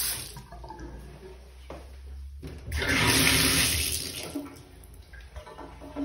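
Bathroom water taps running in turn: a short rush from the sink faucet at the start, then a louder rush of running water for about a second and a half near the middle, from the bathtub tap, fading away after.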